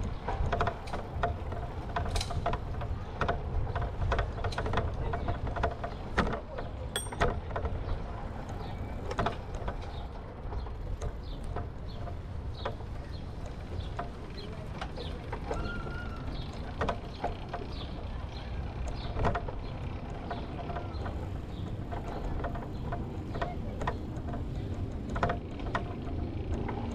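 Bicycle riding over paving stones, heard from a camera mounted on the bike: a steady low wind rumble on the microphone with frequent small clicks and rattles.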